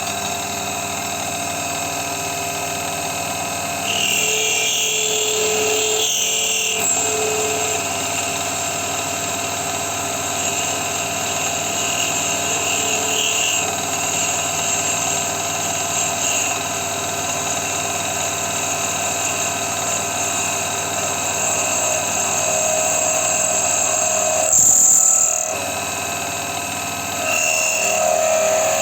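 Small benchtop metal lathe running steadily with a whining motor while turning metal. There are short louder, harsher stretches about four to seven seconds in and again near the end.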